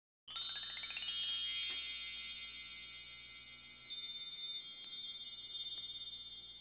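Shimmering chime sound effect of an intro sting: a rising sweep of high tones in the first second, then a scatter of bright chime strikes that ring on and slowly fade.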